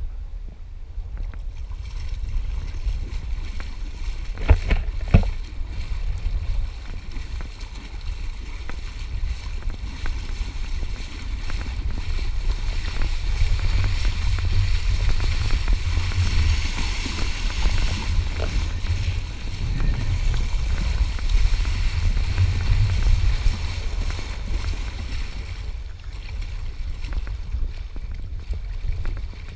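Wind buffeting an action camera's microphone as a steady low rumble, with water splashing around legs wading fast through shallow sea; the splashing is loudest through the middle and eases near the end. A couple of sharp knocks about four to five seconds in.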